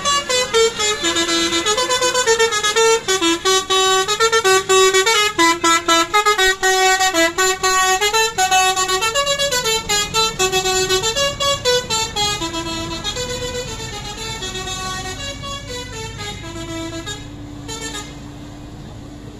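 A tour bus's multi-tone musical air horn (telolet horn) playing a tune of stepped notes, loud while the bus passes close and fading after about 12 seconds. The notes stop near the end, leaving the bus's engine hum.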